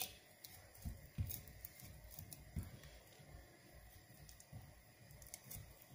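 Faint kitchen handling noises: a few soft low thumps, two about a second in and one a little later, with scattered small clicks.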